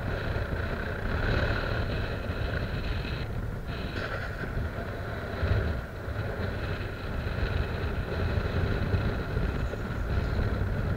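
Steady wind rumbling on the microphone over a choppy sea washing against a concrete breakwater.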